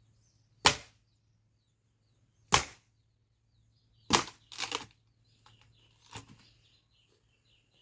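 Sharp cracking knocks of hard firewood being struck, five in all, irregularly spaced about one to two seconds apart.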